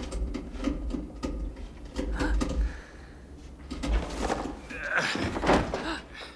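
Wooden creaks, knocks and scuffling, like an old attic's boards and objects being disturbed, with a louder rush of noise about five seconds in.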